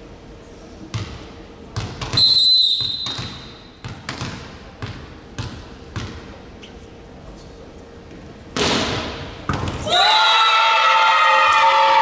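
A short blast of a referee's whistle, then a volleyball bounced several times on the hall floor. Near the end, spectators break into loud shouting and chanting together.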